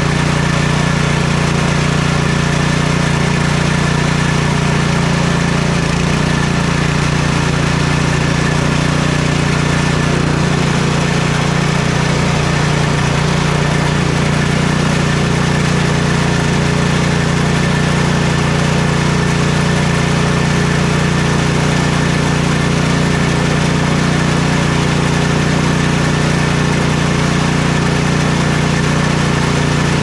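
MTD Powermore 270-XU single-cylinder engine of a Troy-Bilt Storm 2420 snowblower running at a steady, unchanging speed with no surging. Its cleaned and rebuilt carburetor has cured the surging.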